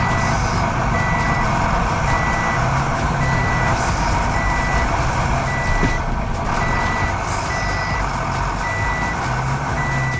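A truck's reversing alarm beeping at an even pace, a bit more than once a second, over the truck's engine running steadily.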